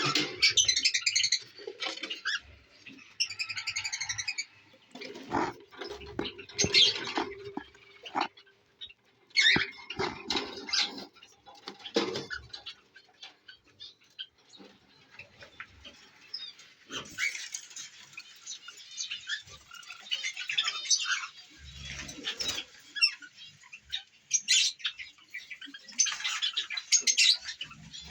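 Pet lovebirds and cockatiels chirping and squawking in short, irregular calls, with some wing-fluttering in the cage.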